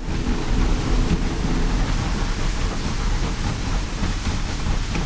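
Motor cruiser under way: the steady rush of wind and water along the hull over the deep hum of its twin Mercury outboard motors, heard from the helm.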